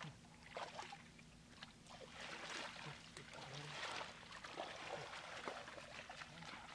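Hands splashing and sloshing through shallow muddy water in irregular small splashes, busiest about two to four seconds in.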